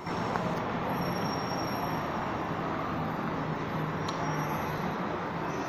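Steady city background noise: the low, even hum of distant road traffic.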